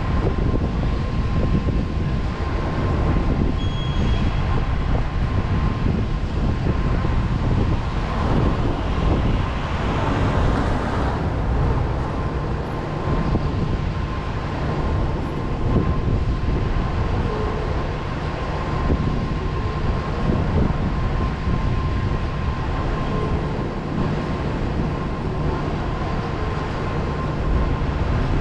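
Steady rumble of a car driving on city roads: tyre and engine noise with a faint thin whine throughout, swelling briefly about ten seconds in.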